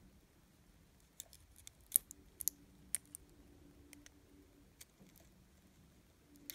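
Scattered small, sharp clicks and scrapes of a utility knife blade working into the seam of a model locomotive's split die-cast metal frame to separate its halves.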